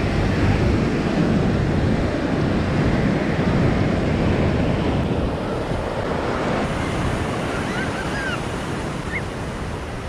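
Ocean surf breaking and washing up the sand as a steady rush that swells and eases, with wind rumbling on the microphone.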